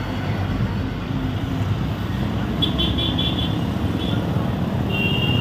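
Steady street traffic noise from passing motor vehicles, with a quick run of about five short high beeps about halfway through and another high beep near the end.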